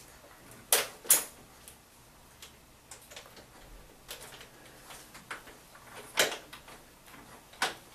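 Sharp clicks and clacks of stainless steel orthosis hardware being lined up and snapped into place on a pair of leg braces: two loud clacks about a second in, another around six seconds, one near the end, with lighter ticks and rattles between.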